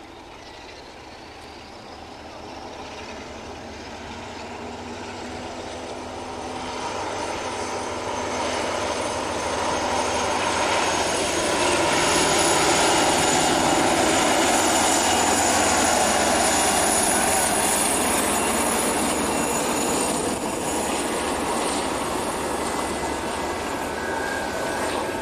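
Class 47 diesel locomotive under power approaching and passing, its Sulzer engine growing steadily louder to a peak about halfway through, with a high turbocharger whistle that rises in pitch and then holds. Near the end the coaches roll past.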